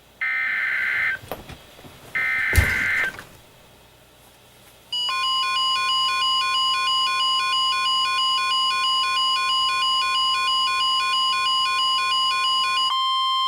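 Emergency Alert System broadcast on NOAA Weather Radio: two one-second bursts of SAME header data screech, with a sharp click in the second, then after a short pause the steady 1050 Hz warning alarm tone. Over the alarm tone the receivers sound rapid, evenly pulsing alert beeps, which stop near the end while the 1050 Hz tone carries on alone.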